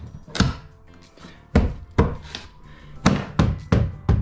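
Repeated knocks on a wooden floorboard as it is knocked down into place: a few spaced strikes, then a quicker run of them in the second half.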